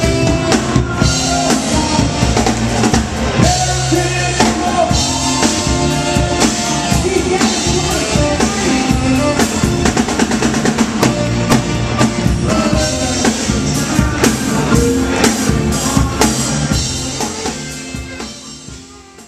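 Rock band music with a steady drum-kit beat and singing, fading out over the last couple of seconds.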